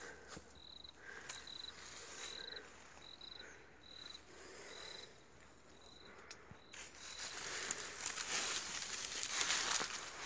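Rustling and brushing of leafy plants with scattered footfalls, growing louder in the second half, over a short high chirp that repeats steadily about once or twice a second.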